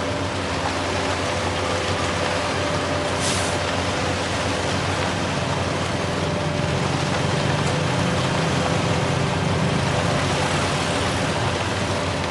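Heavy truck diesel engine running steadily, its low rumble growing louder around eight seconds in. A short hiss about three seconds in.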